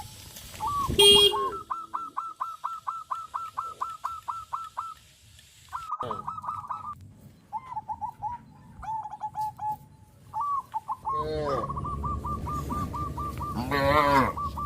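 Birds calling: a fast run of repeated high chirps, about six a second, followed by more short runs of chirps. A louder, fuller call comes about a second in and another near the end, and a low rumble comes in during the last few seconds.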